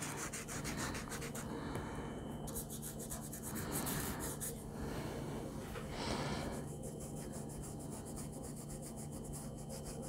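A wet paintbrush rubbing back and forth over acrylic paint-pen colour on sketchbook paper, working water into the dried paint to activate it. The faint brushing strokes are stronger about six seconds in.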